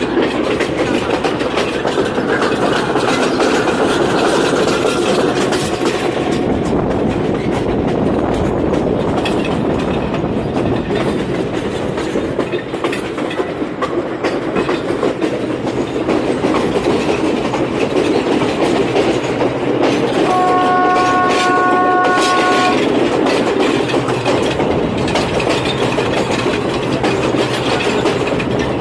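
Train running along the rails with a steady rumble, and the locomotive horn sounding one steady note for about two seconds, about two-thirds of the way through.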